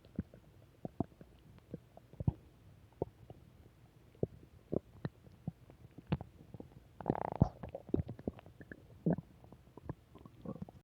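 Human stomach gurgling: a string of short, irregular pops and squelches, with a longer rumbling gurgle about seven seconds in and another about nine seconds in.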